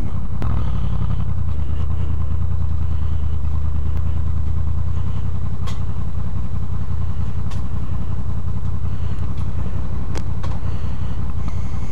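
2008 Honda VFR800 V4 engine on its stock exhaust, running at low, steady revs, heard through a microphone mounted by the exhaust. A few sharp clicks sound in the second half.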